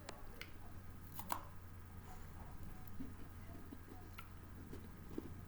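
Eating sounds: a few scattered crunches and clicks of someone chewing snack food, the sharpest about a second in, over a steady low hum.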